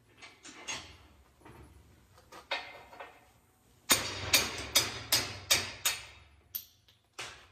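Hammer striking a socket held against a driveshaft U-joint bearing cap, driving the cap out of the yoke. A few light metal taps come first, then from about four seconds in a run of about eight hard metal strikes, two or three a second.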